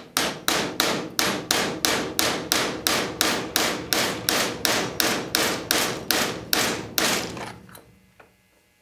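Steady series of light hammer taps on a steel pin punch, about three strikes a second, driving the firing-pin pin out of a Rossi Model 69 revolver's hammer; the taps grow weaker and stop near the end.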